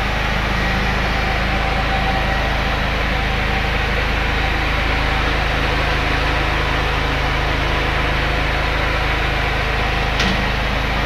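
Makinex 16 kVA generator's engine running at a steady speed, a constant machine drone, with one short click near the end.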